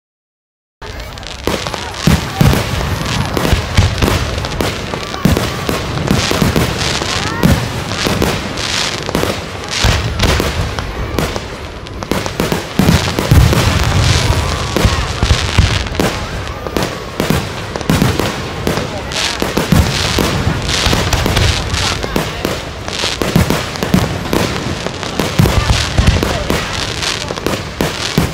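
Aerial fireworks display going off: a dense, continuous run of bangs and crackling shell bursts, starting about a second in.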